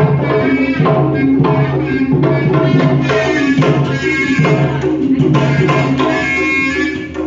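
Sundanese tarompet, a double-reed shawm, playing a loud, reedy melody over kendang hand drums beating a steady rhythm.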